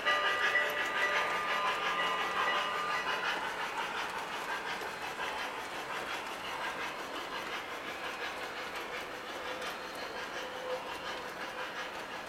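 Lionel O-gauge Southern Pacific Daylight steam locomotive and passenger cars running on model track, a rumbling, clicking train noise that slowly fades as the train moves away. A steady high tone sounds over it for the first three seconds or so.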